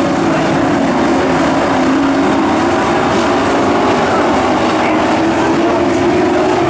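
Pro truck dirt-track race engines running hard together: a loud, steady drone with several engine notes wavering slightly against one another as the trucks pass.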